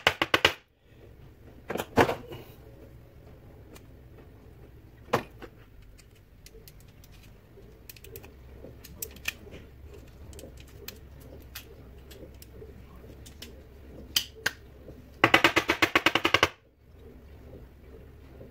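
Sharp clicks of hard plastic parts being handled and prised apart, single clicks about 2 and 5 seconds in and faint ticks between, then a rapid clicking rattle lasting about a second near the end, as the steam/hot-water valve of a Saeco Xsmall espresso machine is worked open by hand.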